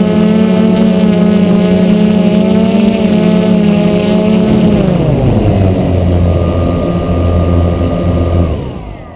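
DJI F450 quadcopter's motors and propellers running with a steady multi-tone buzz as it hovers low. About five seconds in, the pitch falls as it sets down in the grass. Near the end the motors cut and the sound dies away.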